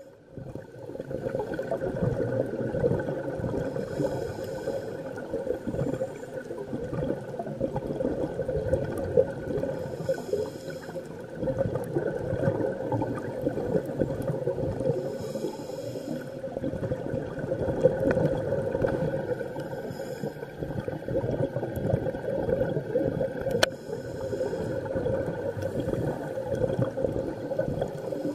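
A scuba diver breathing through a regulator, heard underwater: a steady bubbling and gurgling, with a short hiss about every five or six seconds and one sharp click near the end.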